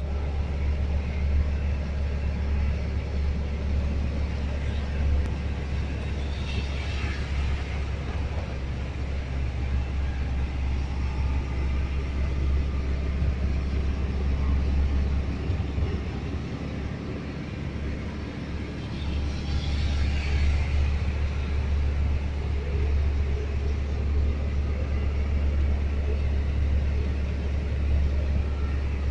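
Ford Cargo truck's diesel engine running with a steady low rumble. A brief hiss swells twice, about a quarter of the way in and again about two-thirds in.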